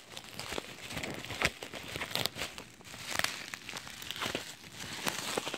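Plastic bubble wrap being handled and unwrapped, crinkling with irregular sharp crackles.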